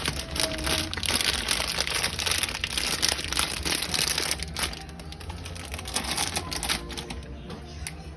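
Plastic snack packaging crinkling and rustling as it is handled, with many small clicks and rattles, easing off somewhat in the last few seconds.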